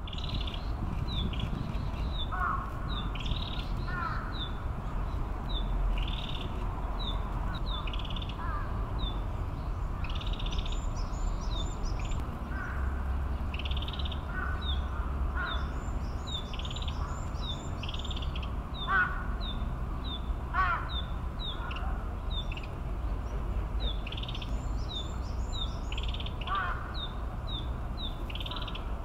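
Narcissus flycatcher singing, short high phrases repeated every few seconds, some ending in a rapid run of high notes, with other birds calling and a steady low rumble behind.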